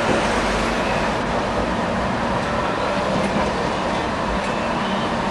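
Tram running along a street track, heard from inside the car: a steady rumble of wheels on rails with a steady low hum and a few faint ticks.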